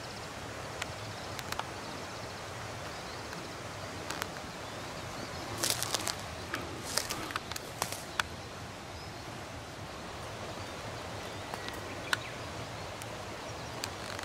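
Dry leaves, twigs and undergrowth crackling as someone moves on foot through winter woods. The crackles are scattered, with a denser run of them around the middle, over a steady background hiss.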